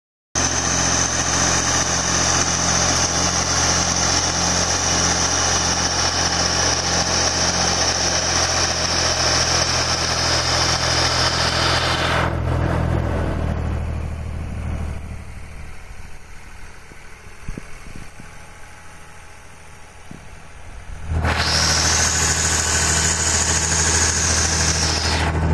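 Small tractor engine running steadily while pulling a Yeomans keyline plow through the ground, with a high whine riding over it. The engine drops much quieter for several seconds in the middle, then comes back loud near the end.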